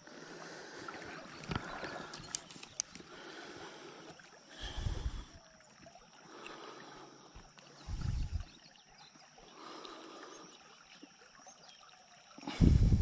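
Faint trickling of a shallow river, with a few small clicks, two dull low thumps about five and eight seconds in, and a louder low thump near the end, from the angler's hands and gear bumping and splashing at the water while a small fish is unhooked.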